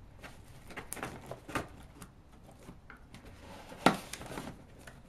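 Fingers scratching and picking at packing tape on a cardboard shipping box, a string of short scrapes and ticks, with one sharp loud click about four seconds in.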